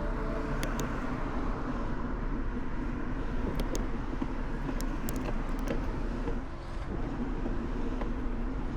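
Steady rolling road and wind noise from riding a bicycle, with a few faint light clicks.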